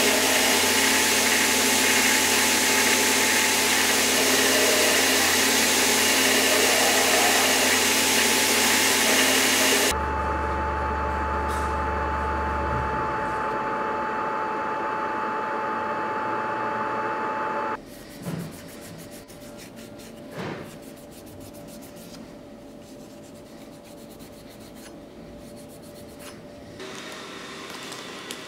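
Belt grinder running with a small steel dagger part held against the belt, a loud steady grinding hiss for about ten seconds. It then gives way abruptly to a quieter steady machine hum with a high whine, and near eighteen seconds drops to low room sound with two short knocks.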